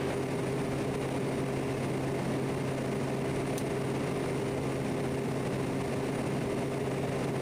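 Quest Kodiak 100's single turboprop engine and propeller droning steadily on final approach, a constant hum with a few level tones over a broad rush of air.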